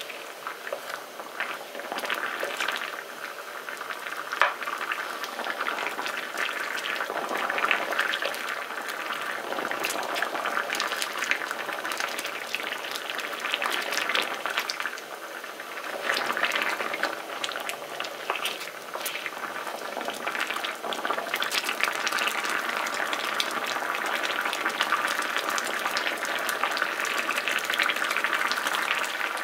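Thick gochujang tteokbokki sauce bubbling as it simmers, with a constant patter of small bubble pops and a few louder taps as a wooden spatula stirs and pushes the long rice cakes in the pan.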